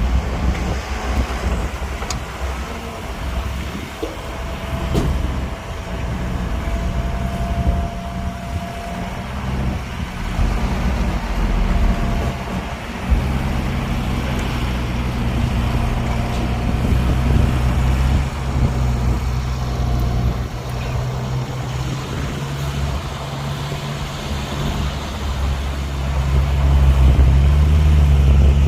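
Heavy diesel engines of earthmoving machines running, a steady low drone that grows louder near the end as a machine works closer.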